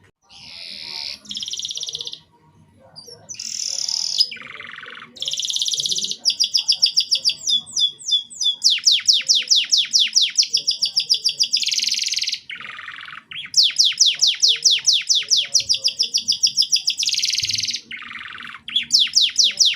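Domestic canary singing a long song of buzzy notes, falling slides and rapid rolled trills of quickly repeated notes, in phrases with short pauses between them.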